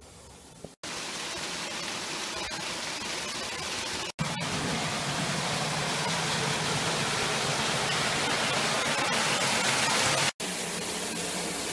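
Small garden waterfall: a steady rush of falling water. It is broken by three very short gaps and is louder after the second, about four seconds in.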